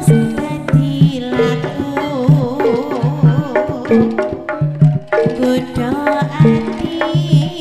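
Javanese jaranan langgam music played live: a kendang barrel drum struck by hand in quick strokes over a regular pulse of low pot-gong notes, with a woman singing a wavering, ornamented melody through the middle.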